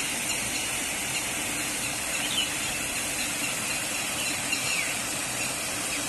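Steady rush of water flowing over and between the stone blocks of a dam, with a few faint short high chirps over it.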